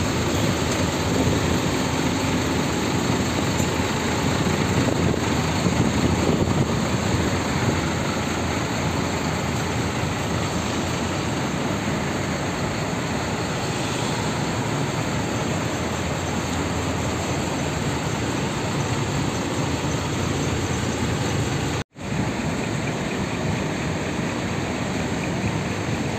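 Steady rumble of large coach buses' diesel engines idling, with a momentary break in the sound about three quarters of the way through.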